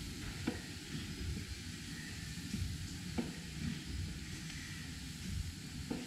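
Fitchburg piston-valve steam mill engine running slowly and quietly, with a steady hiss of steam over a low rumble. A sharp knock comes three times, about every two and a half to three seconds, from a slack bearing that the operator thinks needs tightening.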